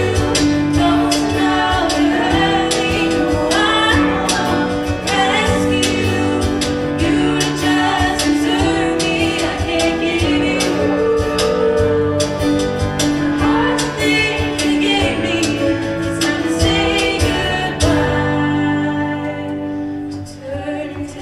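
Show-choir accompaniment music with a steady beat and held chords, with voices singing over it. The beat stops a few seconds before the end and the music thins out.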